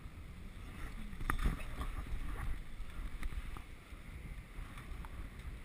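Wind rumbling on a body-worn camera's microphone, with light rustles and snaps from movement over dry twigs and brush, and one sharper click about a second in.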